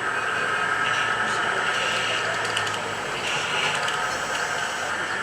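Radio-controlled construction vehicle model's electric drive running with a steady whine, with voices faint in the background.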